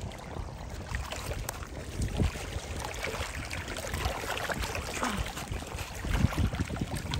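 Wind buffeting the microphone over water lapping at the shore, with irregular short knocks and splashes.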